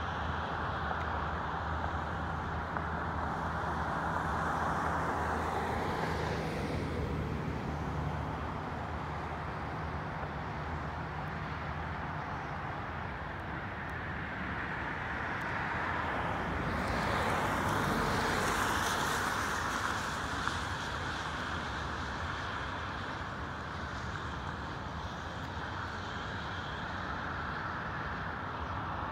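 Freight train's hopper cars rolling past: a steady rush of steel wheels on rail that swells about five seconds in and again around eighteen seconds in. A low steady hum sits under it for the first several seconds, then fades.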